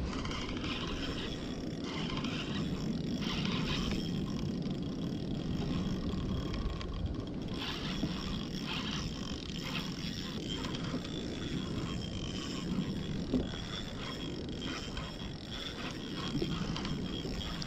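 Steady rush of wind on the microphone and water moving against a plastic sit-on-top fishing kayak's hull on a gentle sea swell.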